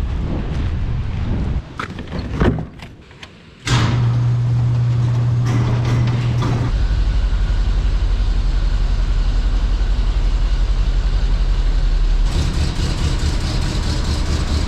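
An engine running steadily after a few clicks and knocks. It comes in suddenly a few seconds in, settles to a lower, deeper note a few seconds later, and turns louder and harsher near the end.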